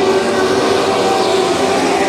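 A pack of dwarf cars racing, their motorcycle engines running hard together. The sound is loud and steady, with several engine pitches drifting slightly up and down as the cars pass.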